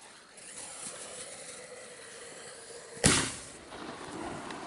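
Hissing as the fireworks finale is lit, then one sharp bang about three seconds in as the first shot fires.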